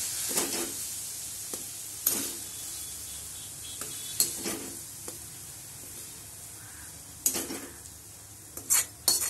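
A metal spoon scraping and knocking against a kadhai as fried curry leaves and tomato are scooped out onto a steel plate. Several separate scrapes and knocks, more of them near the end, over a sizzle that fades away as the pan cools after the gas is turned off.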